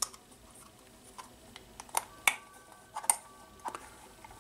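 Rubber RC tyre and plastic beadlock wheel centre being worked together by hand, turned round to seat the wheel in the tight tyre, giving a few irregular sharp clicks and taps.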